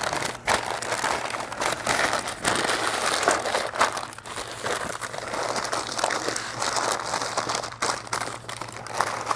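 Pink butcher paper crinkling and rustling in irregular handfuls as it is folded and tucked tightly around a smoked brisket.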